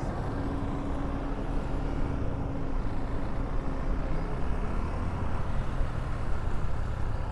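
KTM Duke 390's single-cylinder engine running steadily on the move, with steady wind and road noise.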